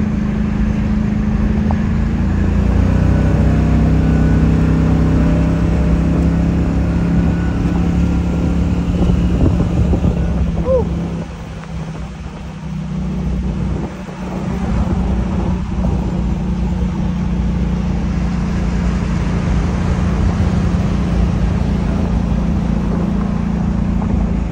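Car engine running under way, its pitch rising over the first few seconds as it pulls. The note drops away for a few seconds around the middle, then comes back to a steady drone.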